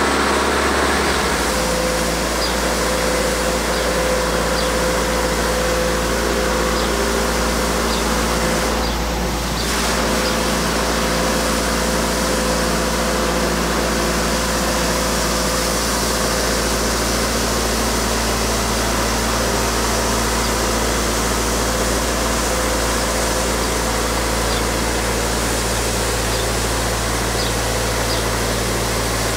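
Trackless MT7 articulating sidewalk tractor's diesel engine running steadily while its power angle sweeper's rotary brush turns on the pavement, under a steady hiss.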